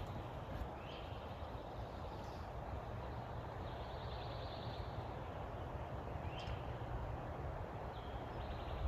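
Small wild birds calling in woodland: a few short high chirps, and in the middle a buzzy trill lasting about a second, over a steady low rumble.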